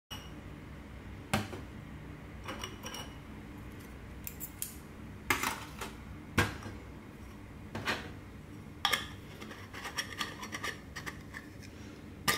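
Brass Trangia alcohol burner and other metal camp cookware being handled on a metal tabletop: a dozen or so irregular clinks and knocks of metal on metal, some ringing briefly.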